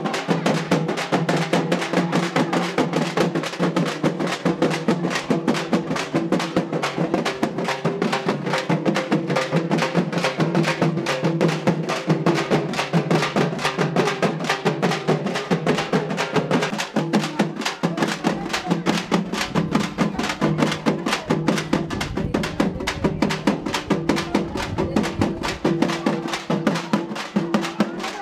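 A village drum band playing a fast, steady rhythm on stick-beaten double-headed drums and a large bass drum, with a held tone underneath. The low booms grow stronger in the second half.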